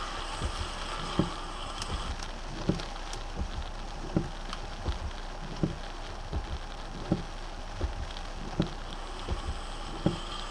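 Rain pattering on a car's windshield and roof, heard from inside the car, with a regular low thump about every three-quarters of a second.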